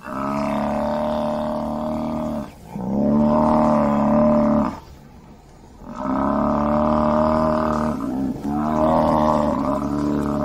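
Buffalo bellowing: four long, low, drawn-out calls of about two seconds each, with a brief break after the first, a pause of about a second near the middle, and the last call still going at the end.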